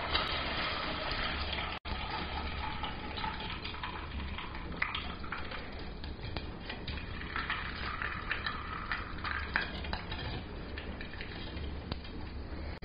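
Hot forged mild-steel hook sizzling in a can of boiled linseed oil as it is quenched for a finish, with scattered clinks and scrapes of the tongs against the tin can as the hook is moved about.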